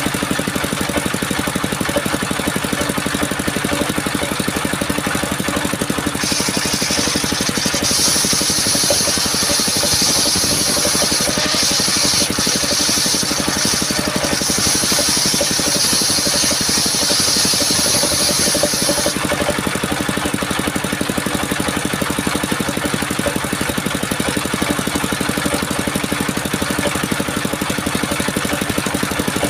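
Engine of a homemade mobile bandsaw mill running steadily. A loud high hiss, the blade cutting through coconut wood, joins about six seconds in and stops about thirteen seconds later.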